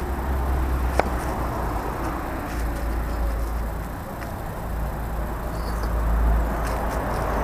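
Concrete paving blocks knocking as they are handled and set down on a sand bed: one sharp knock about a second in and a fainter one after about four seconds, over a steady low rumble.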